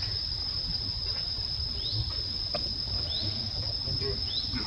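Steady high-pitched drone of insects, with three short rising chirps from another small creature over it.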